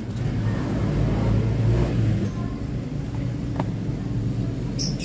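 Hands handling a baitcasting reel and its cardboard box, a light rustle of packaging with two sharp clicks near the end. A steady low hum underlies it all.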